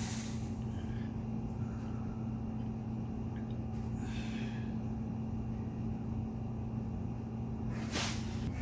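A man's sharp breaths of effort, three in all: at the start, more faintly about four seconds in, and again near the end, as he strains through reps on a cable pulley handle. A steady low hum runs underneath.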